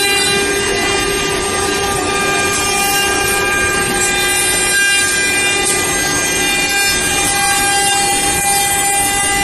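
Woodworking machine for solid-wood slabs running loudly and steadily: a rushing noise with a constant whine held throughout.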